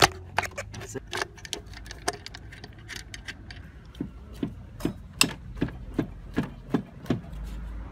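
Ratchet wrench clicking on the timing belt tensioner nut of a VW 1.9 SDI diesel engine. A few scattered metal clicks and clinks come first; from about halfway through, the clicks settle into a steady rhythm of roughly two or three a second as the ratchet is swung back and forth.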